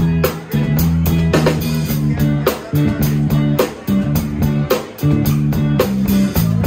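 Live rock band playing electric guitar, bass guitar and drum kit, with a steady, evenly repeating drum beat under sustained guitar and bass notes.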